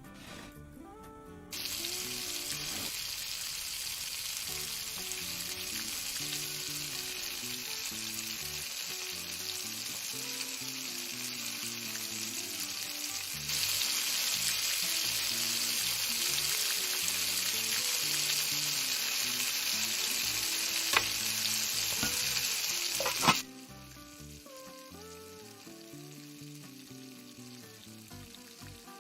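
Food sizzling in a frying pan, a steady hiss that starts about a second and a half in, grows louder about halfway through and cuts off suddenly near the end, just after two sharp clicks. Soft background music plays underneath.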